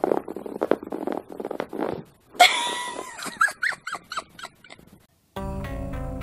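A kitten gives one loud cry about two and a half seconds in, then a quick run of short, high squeaks. Background music plays before it, and different guitar music starts near the end.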